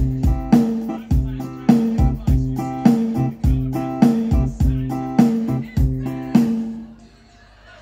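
Korg Pa700 arranger keyboard playing back a Sumazau style pattern: drums and bass with a plucked-string part in a steady beat, a strike roughly every 0.6 seconds, stopping about six and a half seconds in.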